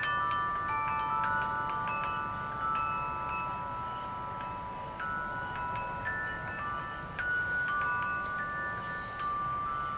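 Wind chimes ringing, struck at irregular moments, several clear tones overlapping and ringing on for seconds each.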